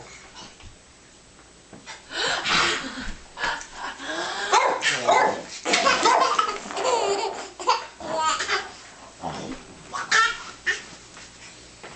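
Repeated bursts of laughter mixed with a dog's barks, starting about two seconds in.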